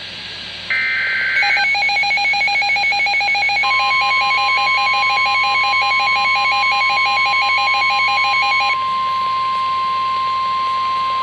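NOAA Weather Radio alert starting: a brief data-burst screech of the SAME digital header, then a weather radio's rapid pulsing alarm beep for several seconds, with the steady 1050 Hz warning alarm tone joining about a third of the way in and holding on after the beeping stops.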